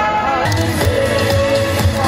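Music with pitched instruments over a pulsing low end; the sound changes abruptly about half a second in.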